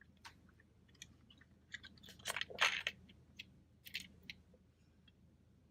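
Close-miked chewing of soft pretzel nuggets: irregular faint wet clicks and mouth smacks, with a louder cluster in the middle.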